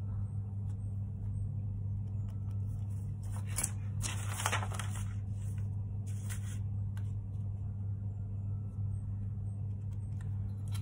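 Grid paper pattern sheet rustling and shifting on a cutting mat as a steel ruler and marker pen are moved over it, in a few short bursts about a third and two-thirds of the way in, over a steady low hum.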